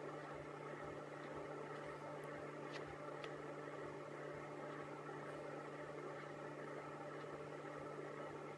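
Steady whirring hum of a small household electric appliance running, with a couple of faint ticks about three seconds in.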